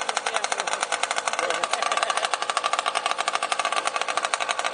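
Small petrol two-stroke engine of a radio-controlled model boat, fitted with a chrome tuned exhaust pipe, running steadily with a rapid, even popping.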